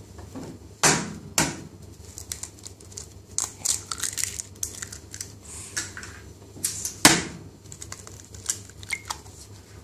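Eggs being cracked and their shells broken open over a stainless steel bowl: sharp knocks about a second in and again about seven seconds in, with lighter crackling ticks of shell between.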